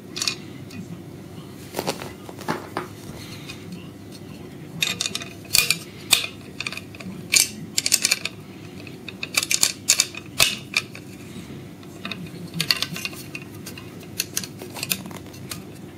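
Stainless steel plates and hinge pin of a freeline skate clicking and clinking against each other as they are handled and fitted together, in irregular clusters of sharp metallic clicks.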